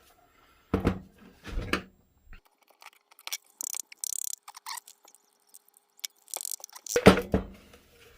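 Hands prying apart a small battery pack's casing: a couple of knocks, crinkling and tearing of plastic, then a loud clunk about seven seconds in.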